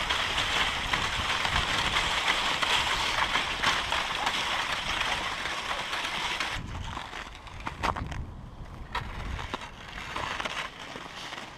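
Dog sled gliding over packed snow behind a running husky team: a steady scraping rush of the runners. About six and a half seconds in the rush drops off abruptly as the sled slows, leaving quieter crunching with a few scattered knocks.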